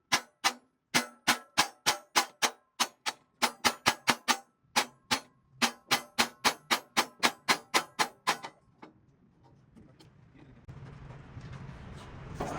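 A hammer beats on metal in a fast, even rhythm of about three to four blows a second, each blow ringing briefly. After about eight and a half seconds the blows stop and only a low hum and hiss remain.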